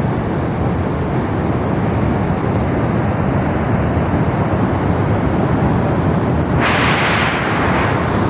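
Muddy flash flood surging down a rocky gorge, a loud steady rumble of rushing water and debris. A harsher hiss joins about six and a half seconds in.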